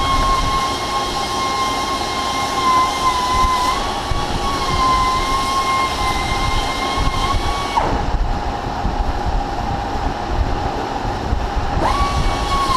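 Large engine lathe running, a steady gear whine over a constant low machine rumble. The whine drops away suddenly about eight seconds in and comes back near the end, while the rumble carries on.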